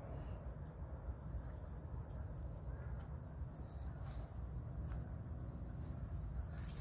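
Steady high-pitched insect chorus, like crickets at dusk, over a low steady rumble, with a few faint clicks.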